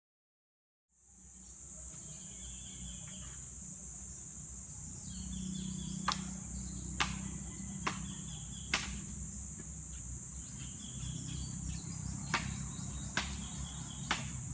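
A steady high insect drone with a few bird chirps, fading in about a second in. Over it come a handful of sharp pops from about six seconds in, the crackle of a wood and coconut-husk fire.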